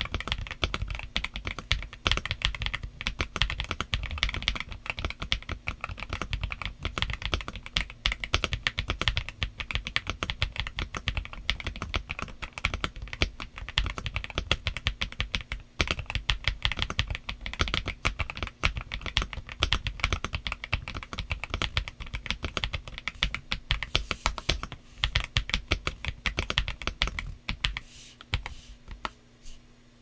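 Typing on a stock Aula Wind F87 TKL mechanical keyboard, a fast, continuous run of key clacks that thins out near the end.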